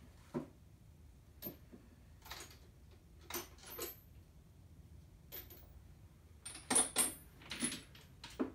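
Metal hand tools clinking and clattering, a series of short sharp clinks with a high ring, bunched most loudly near the end: sockets and tools being handled and sorted in a tool box.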